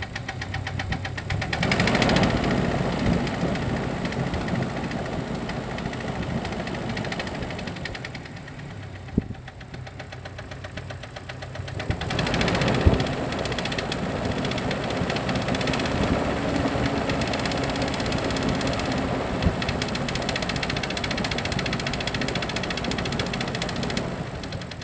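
Jeep Cherokee XJ's 2.5 L four-cylinder petrol engine running with a rapid, steady knock from a piston whose skirt has broken off in the second cylinder. It gets louder about two seconds in and again about halfway through.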